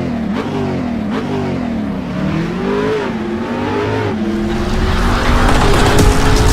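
Racing-car sound effect: an engine revving, its pitch rising and falling repeatedly, growing louder over the last couple of seconds.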